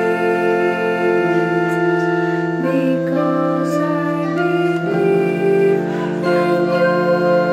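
Electronic keyboards played in sustained, organ-like chords that change every second or two, with female voices singing along.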